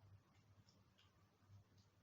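Near silence: a faint low hum of room tone, with a few soft, faint clicks about a second in.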